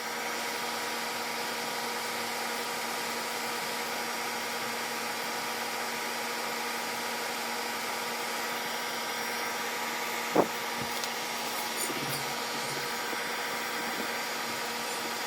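Toshiba 70-pint dehumidifier running: a steady fan whir with a constant hum, and a single sharp click about ten seconds in.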